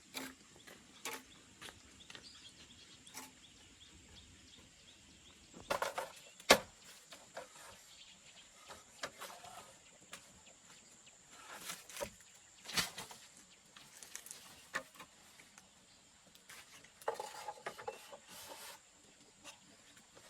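Scattered sharp knocks and short stretches of rustling, the loudest knock about six and a half seconds in.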